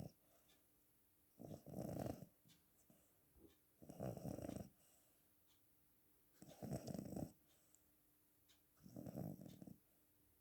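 Cat snoring in its sleep: four snores, one about every two and a half seconds, each lasting under a second.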